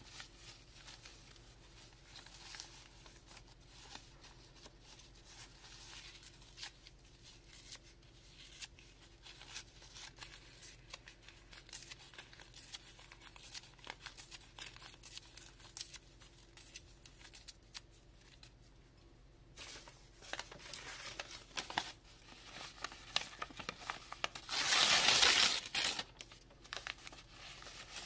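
Grey paper torn by hand into small scraps for recycled-paper pulp: many short rips one after another, with one longer, louder tear near the end.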